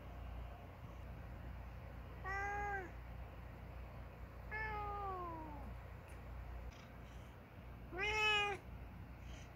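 Domestic cat meowing three times a few seconds apart: a short meow, then a longer one that falls in pitch, and a louder one near the end.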